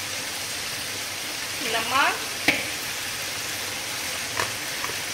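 Masala of tomatoes, green chillies and spices sizzling in oil in a large metal pot, a steady frying hiss. Two sharp clicks cut through it, about halfway and near the end.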